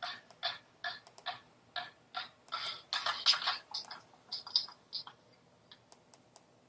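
Small handheld radio's speaker giving short bursts of sound, about two a second, as it is tuned across the band in search of a station. The bursts stop about five seconds in, leaving only faint clicks.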